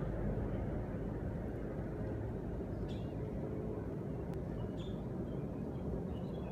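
Steady low rumble of outdoor background noise, with a few faint, short high chirps about three seconds in and near the end.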